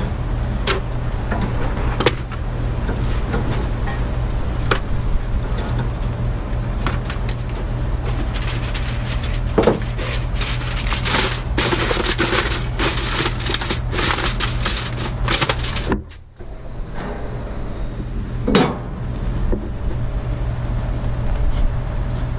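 Clicks, knocks and a busy stretch of clatter from handling things at a charcoal grill, over a steady low hum; the sound cuts out abruptly for a moment about two thirds of the way in.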